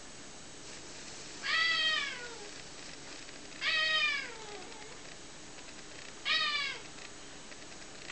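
A domestic cat meows three times, drawn-out calls that fall in pitch, a couple of seconds apart; the last is the shortest. These are the calls of a cat in a face-off with another cat.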